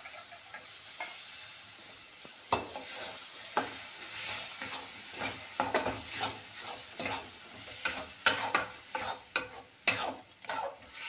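Masala sizzling in a metal kadai, then from about two and a half seconds in a flat metal spatula scraping and knocking against the pan as curd is stirred into the frying masala, the strokes coming quicker near the end.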